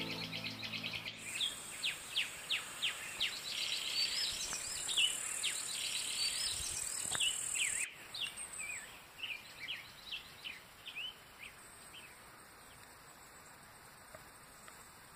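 Small birds chirping and calling with quick repeated chirps and short whistled notes, over a steady high buzz that cuts off abruptly about halfway through. After that the chirps grow fainter and die away. Background music fades out in the first second.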